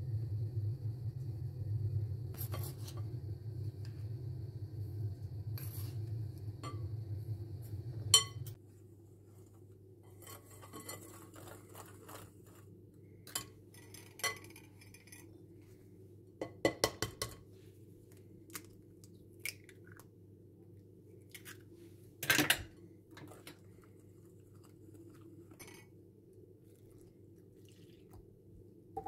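A metal spoon and a coil whisk clinking and tapping against a glass jar and a glass mixing bowl during mixing, in scattered single clicks and short clusters, the loudest about eight seconds and about twenty-two seconds in. A steady low hum stops about eight seconds in.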